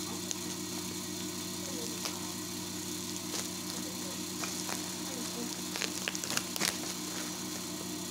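Plastic bag and bubble-wrap packaging rustling and crinkling as a boxed food processor is unwrapped by hand, with a cluster of sharper crackles about six to seven seconds in. A steady low hum runs underneath.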